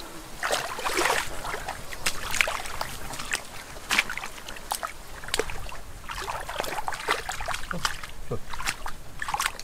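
Hands sloshing and scooping through shallow, muddy ditch water, making irregular short wet splashes and slops.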